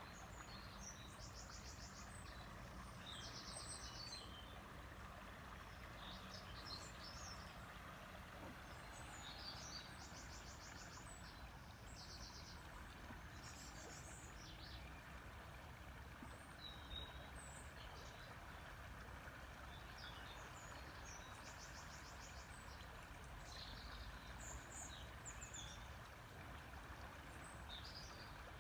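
River water flowing steadily, with small birds chirping over it and giving several short rapid trills.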